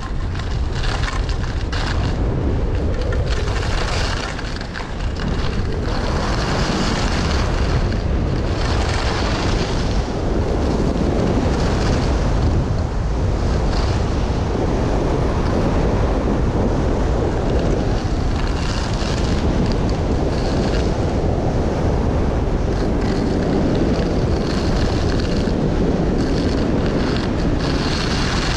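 Wind buffeting the microphone, a continuous low rumble with a rushing hiss over it that swells and eases every few seconds.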